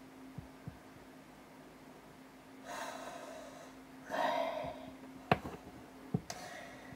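A man breathing heavily, two audible breaths a little over a second apart, followed by two short faint clicks.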